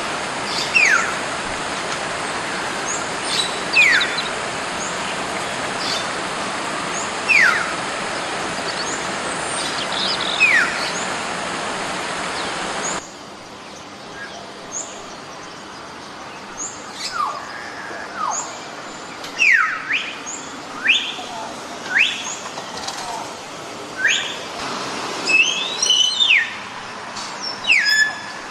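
Hill myna whistling: clear whistles gliding sharply downward, about one every three seconds, with short higher notes, over a steady rushing hiss. About halfway through the hiss drops away suddenly, and the whistles come faster and more varied, some higher and some rising.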